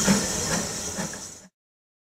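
LMS Ivatt Class 2 2-6-2T steam tank locomotive working along the line: steam hissing over a regular exhaust beat of about two chuffs a second, fading out about one and a half seconds in.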